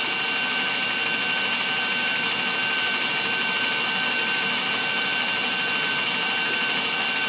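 KitchenAid Professional 5 Plus stand mixer running steadily, its wire whip beating heavy cream in a stainless steel bowl; the motor gives a constant whine.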